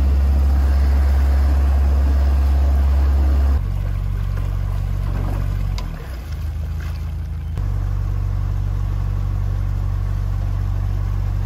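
Narrowboat engine running with a low, steady hum while the boat is brought in to moor. It drops to a lower speed about three and a half seconds in, dips briefly around six seconds, and picks up again a little past halfway.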